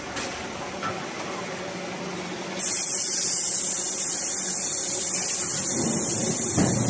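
A loud, steady spraying hiss starts suddenly about two and a half seconds in and carries on, over a lower, steadier background din.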